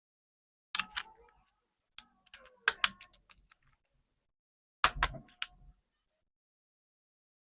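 Marbles clicking and rattling down a wooden HABA marble run: three short clusters of sharp clicks with silent gaps between, the loudest about two-thirds through.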